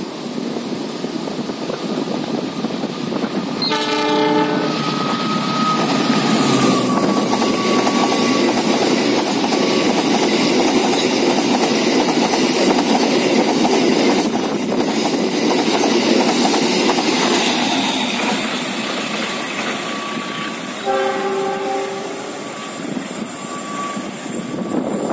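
Diesel freight train passing close: the locomotive sounds its horn once, about a second long, a few seconds in, then the loaded covered wagons rumble and clatter past on the rails. A second, shorter horn blast comes near the end.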